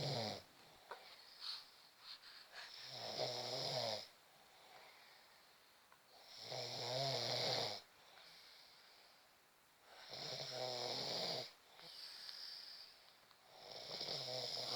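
A sleeping person snoring: four loud snores, each about a second long, roughly every four seconds, with softer breathing between them.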